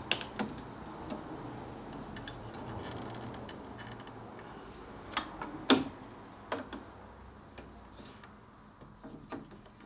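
Scattered plastic clicks and knocks as PEX water pipe is handled and pressed into plastic stub-out brackets on a wooden block. The sharpest knock comes about six seconds in, with soft handling noise between.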